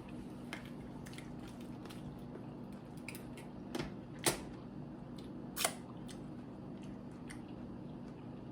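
Eating lobster tails: a handful of short, sharp mouth clicks and smacks, the loudest two about four and five and a half seconds in, over a steady low hum.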